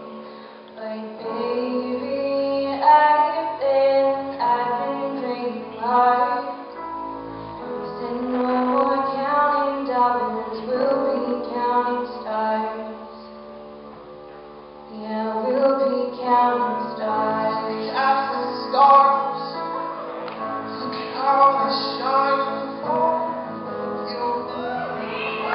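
A woman singing a song live with a small acoustic band of acoustic guitar, upright bass and piano. The music drops to a quieter passage about halfway through, then builds again.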